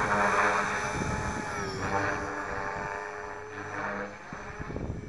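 Align T-Rex 450 Pro electric RC helicopter flying close past: the whine of its motor and drive with the whirr of the rotor blades, the pitch shifting with the flying. It is loud at first and fades as the helicopter climbs away.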